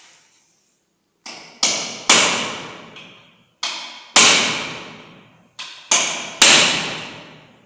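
Repeated sharp, loud knocks in three groups, a lighter knock followed by one or two heavy ones, each ringing on for about a second.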